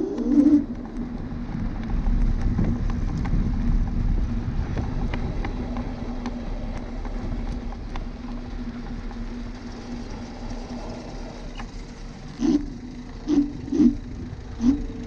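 Dualtron Thunder electric scooter riding along pavement: a steady motor hum under tyre and wind noise, with several short knocks in the last few seconds.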